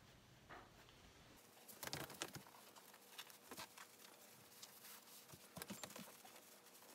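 Faint rustling and light taps of a fukuro obi being handled and smoothed into shape by hand, loudest about two seconds in.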